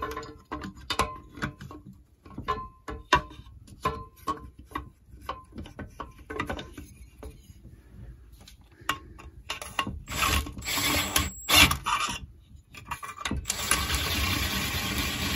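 Metal clinks and knocks as the exhaust muffler and its bolts are fitted to a Stihl TS410 cut-off saw. Then a power driver whirs steadily twice, about two-thirds through and again near the end, running the exhaust bolts in.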